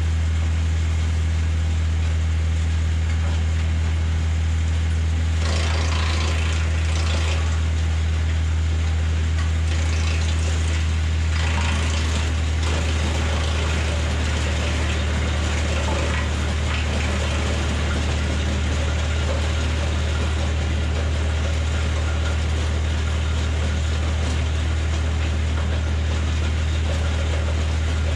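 Tractor engine idling steadily while driving a BX52 PTO wood chipper, with rough crunching and rattling about six and eleven seconds in as branches are fed in. The PTO is turning at tractor idle, too slow for the chipper, which clogs at that speed.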